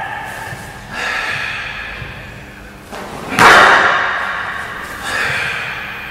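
Three sharp impacts from a karateka's strikes and steps during a kata, each ringing on in a long hall echo. The second, about three and a half seconds in, is the loudest.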